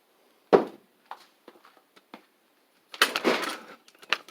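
Metal engine parts and tools handled on a workbench: a sharp knock about half a second in, a few light clicks, then a short burst of rattling and scraping about three seconds in.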